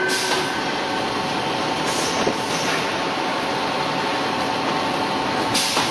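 Full-automatic core veneer composer for plywood cores running: a steady mechanical din with faint steady tones. Short bursts of hiss come about two seconds in and again near the end.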